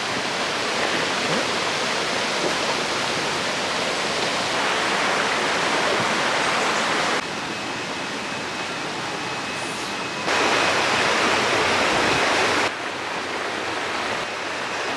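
Rushing water of a waterfall, a steady hiss that changes level abruptly a few times.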